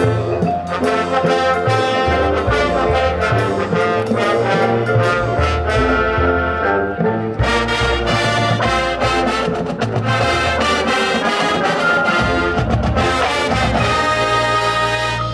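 Marching band playing: the brass section carries the music over the front-ensemble percussion, with regular percussion hits throughout.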